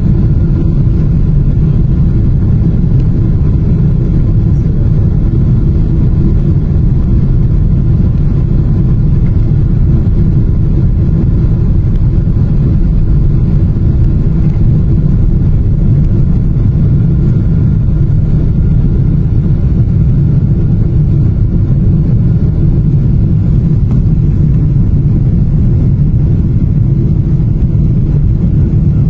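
Airliner's jet engines at takeoff thrust together with the rumble of the takeoff roll, heard from inside the passenger cabin: a loud, steady, deep roar with a faint steady hum on top.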